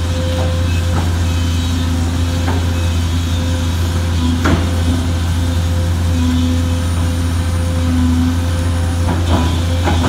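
Sunward SWE210ELR long-reach excavator's diesel engine running steadily under load while digging in mud. A higher hum comes and goes over the drone, and a few sharp knocks ring out, the loudest about four and a half seconds in.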